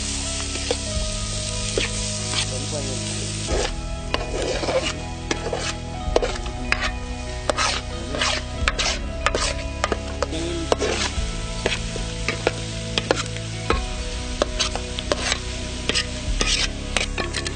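Food sizzling in a pot while a spoon stirs it, with many sharp clicks and scrapes of the spoon against the pot.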